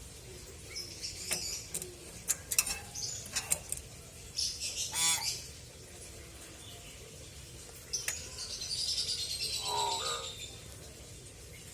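Pet hill myna calling: a string of sharp clicks and short chirps, a fast rattling call about five seconds in, then a longer breathy, hissing call with a short lower note near the end.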